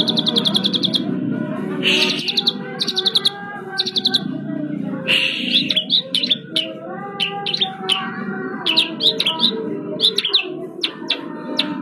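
Asian pied starling (jalak suren) singing. The song opens with rapid chattering rattles, then gives a run of sharp, rising whistled notes over a lower, continuous warbling.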